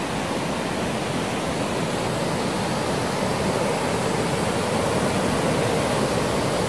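A mountain stream rushing steadily over rocks and small cascades, growing slightly louder toward the end.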